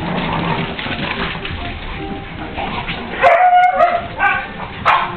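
Small dogs barking and yipping while chasing a laser dot, with one loud, drawn-out bark a little over three seconds in and shorter barks after it.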